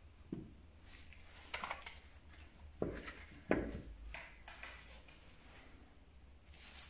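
Handling noise from a Powerfix aluminium spirit level being moved and set down on a cloth-covered surface: a few soft knocks with rubbing and rustling between them. The loudest knock comes about three and a half seconds in.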